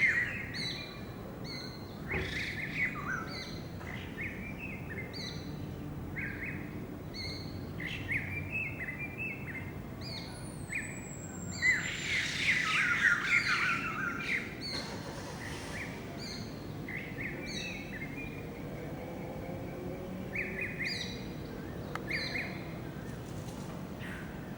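Many small birds chirping and calling together in an evening chorus: short repeated chirps at a few pitches, over and over, with a louder, busier flurry about halfway through.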